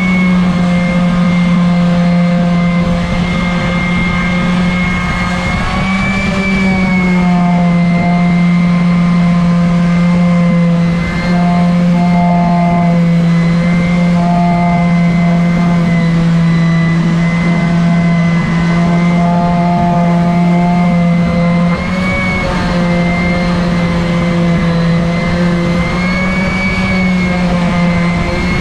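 Random orbital sander running steadily while sanding a cork decoy body: a loud, even motor hum whose pitch wavers a little now and then.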